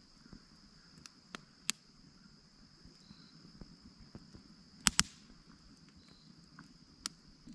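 Steady high insect trill of crickets, with a few sharp pops from a crackling wood campfire, two of them loud and close together about five seconds in.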